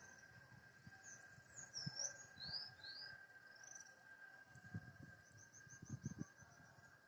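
Faint birdsong, with a few rising chirps in the first three seconds and a quick run of short notes near the end, over a faint steady high-pitched hum that the recorder takes for a strange noise in the sky. A few faint low thumps are also heard.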